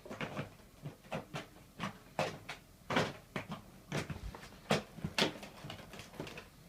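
Irregular sharp plastic clicks and knocks, a dozen or so, as the clear dust canister of a Dyson DC54 vacuum cleaner is handled and fitted.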